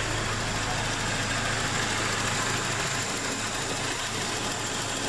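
1998 Toyota Corolla's four-cylinder engine idling steadily while it warms up.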